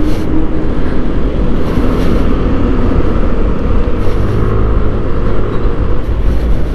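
Motor scooter engine running steadily while riding in slow traffic, mixed with a heavy, steady low rumble on the action camera's microphone.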